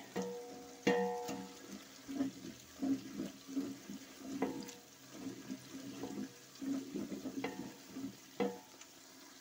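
Thinly sliced onions deep-frying in hot oil in a large metal pot, almost browned, under a faint steady sizzle. A spoon stirring them knocks and scrapes against the pot about once a second, and the pot rings briefly after the knocks.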